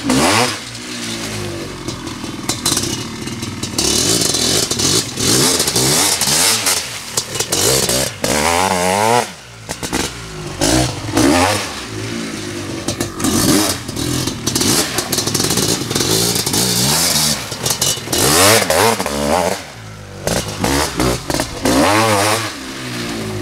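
Honda CR500 big-bore two-stroke motocross engine being ridden hard, revving up and dropping off repeatedly as the throttle is opened and closed.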